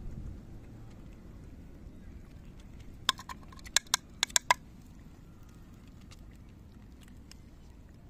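Cats eating kibble from a dish, with faint crunching and ticking. A quick run of about six sharp clinks comes in the middle.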